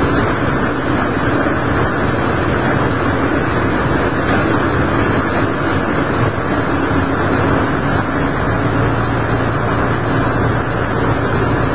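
Diesel railcar running at speed, heard from inside the cabin: a steady drone of engine and wheels on rail, with an even low hum underneath.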